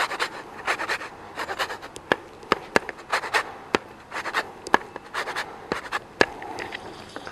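Lemon rind being scraped on a small hand grater: quick, uneven scraping strokes as zest is grated off.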